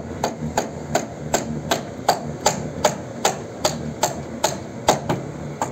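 Roofer's hammer driving nails into timber rafters: a steady run of sharp blows, about two to three a second.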